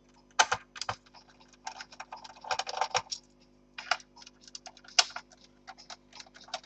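Irregular small clicks and short scrapes of a screwdriver and screws working on the plastic bottom case of an Acer 5541G laptop, as the back-panel screws are taken out one by one.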